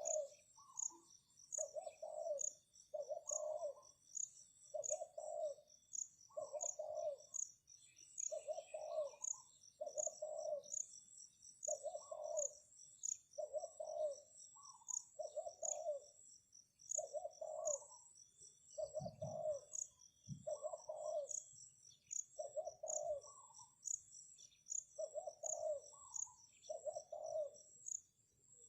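Spotted doves cooing over and over, about once a second, with a higher note now and then. An insect chirps in an even pulse in the background, and there are two low thumps about two-thirds of the way through.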